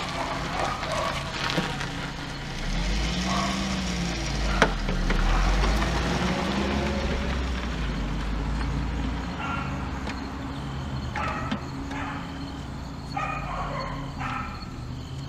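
A vehicle passing by, a low rumble that swells from about three seconds in and fades by about nine, with a couple of sharp clicks early on; in the second half a dog barks several times.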